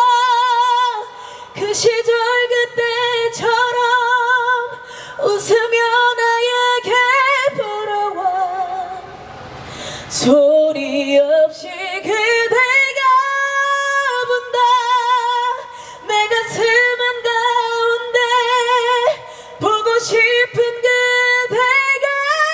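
A woman singing a high ballad melody live, holding long notes with wide vibrato between short breaths.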